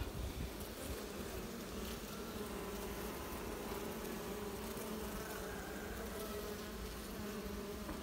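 Honeybees buzzing around an opened hive frame: a steady, continuous hum of many bees.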